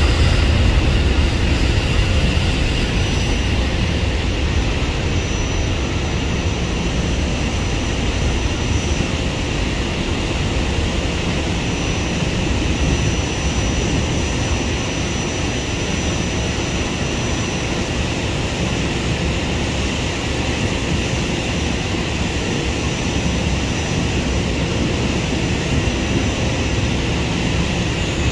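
Jet engines of a twin-engine widebody airliner at takeoff power, a steady roar that slowly fades as the aircraft rolls away down the runway and climbs out.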